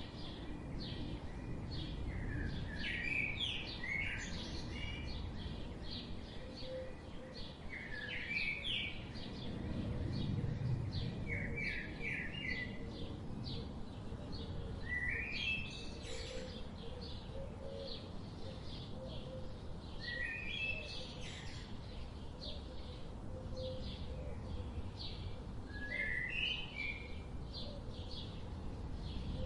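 Wild birds chirping. A short burst of quick chirps comes every four to five seconds over a steady run of fainter, higher chirps, with a low background noise beneath.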